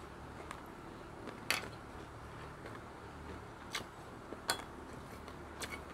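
Quiet eating sounds from crunchy dried dilis and squid eaten by hand: a few sharp crisp clicks, the clearest about a second and a half in, over faint room tone.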